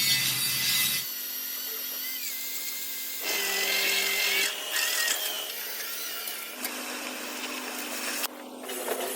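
Power tools working on the steel frame of a dump truck, a steady hiss with whining tones, changing abruptly several times as short shots are cut together.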